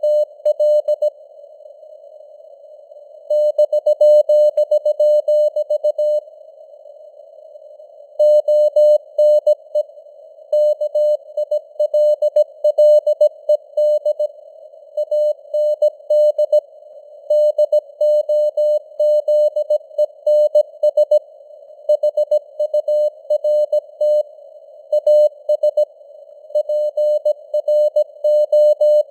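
Morse code (CW) sent at 17 words per minute: one steady mid-pitched tone keyed on and off in dots and dashes over a narrow band of simulated radio hiss, with signal strength that fades up and down (QSB). Twice in the first third the keying stops for about two seconds, leaving only the hiss.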